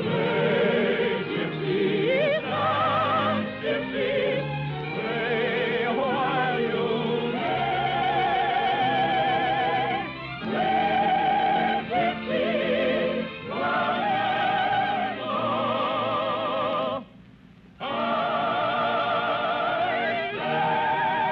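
Operatic singing with wide vibrato over an orchestra, the closing number of an operetta in an old radio broadcast recording. The music breaks off briefly about seventeen seconds in, then resumes.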